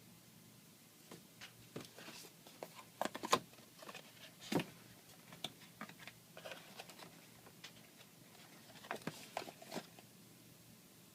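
Irregular clicks, taps and light rustles of camera gear and packaging being handled during an unboxing. The loudest clicks come about three to four and a half seconds in, with another cluster near nine seconds.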